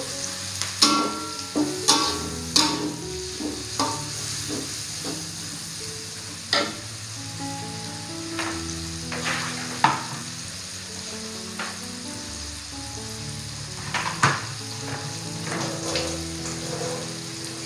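Chilies, garlic, shallots, ginger, bay leaves and lime leaves sizzling in hot oil in a wok. A metal spatula clinks and scrapes against the wok a few times in the first seconds, and a few single clicks follow later.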